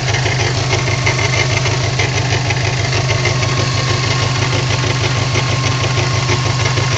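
Subaru Impreza WRX's turbocharged flat-four engine running steadily with a rapid, even pulse and light ticking over it. This is the knocking/ticking noise the owner is trying to diagnose, whose cause he does not know.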